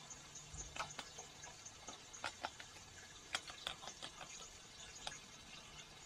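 Raccoon eating cat food from a dish: irregular crunching and clicking, loudest in a cluster of clicks between about two and four seconds in.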